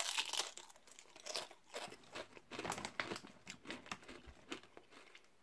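Foil-lined crisp packet crinkling as it is handled, in short irregular crackles, with the crisps inside crunching.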